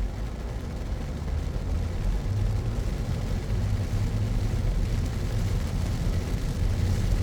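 Car driving on rain-soaked city roads: a steady low rumble of engine and road noise with a hiss of tyres on wet pavement.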